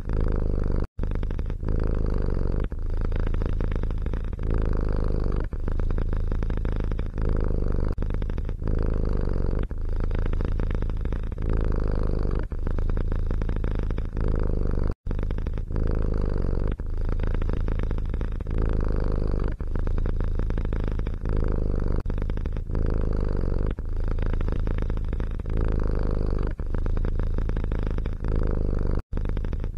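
Domestic cat purring close to the microphone, a continuous low rumble that swells and dips about every second and a half with its breathing, broken by three very brief silent gaps.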